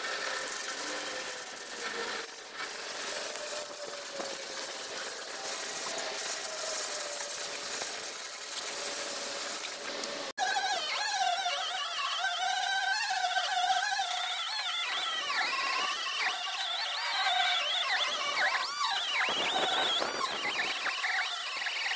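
Power grinder with an abrasive disc taking old paint off a metal boat fuel tank: a continuous whining buzz with a grinding hiss. About ten seconds in the sound breaks off sharply and comes back as a clearer whine whose pitch wavers as the disc bears on the metal.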